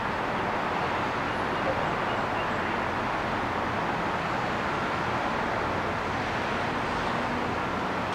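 Steady, even rushing noise with no distinct events, like a constant outdoor background roar.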